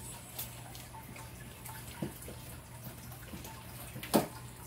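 Five-lined skink crunching a large tree cricket in its jaws: scattered small clicks, with a sharper, louder one about four seconds in, over a steady low hum.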